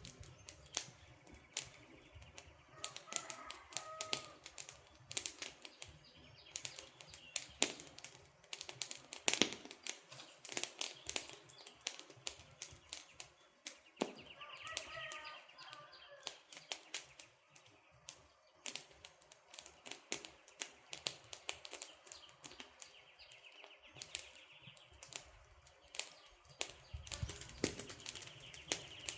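Campfire crackling: burning wood giving off frequent, irregular sharp pops and snaps. A bird calls briefly about three seconds in, and again in a longer run of chirps around the middle.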